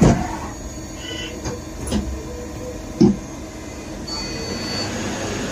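Mazak Integrex 200 SY CNC mill-turn centre running inside its enclosure: a steady mechanical whir and hiss, with sharp knocks at the start and about two and three seconds in. A thin high tone comes in about four seconds in.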